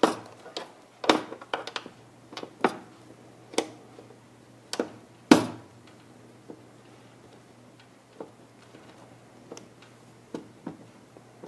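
Irregular clicks and knocks of hard parts being handled while a desktop computer is taken apart. They are louder and closer together in the first six seconds, then sparser and fainter, over a faint steady hum.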